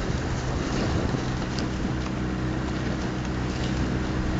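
Outboard motor of a coaching launch running steadily at cruising speed, an even hum with wind and water noise over it.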